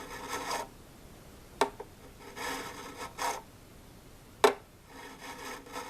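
Medium fret crowning file rasping over a mandolin's frets in three slow strokes, rounding flat-topped frets back over. Two sharp clicks come between the strokes.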